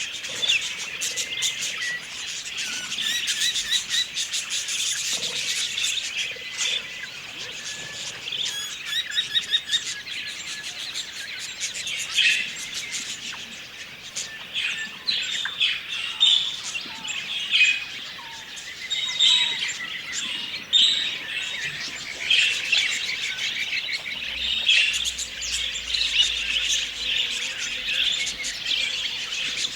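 Budgerigars chirping and warbling in a dense, continuous chatter of quick, high chirps, with sharper calls standing out now and then.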